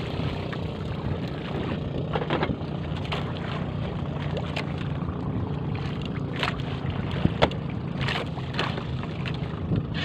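A boat's engine running steadily, with a few short sharp knocks now and then.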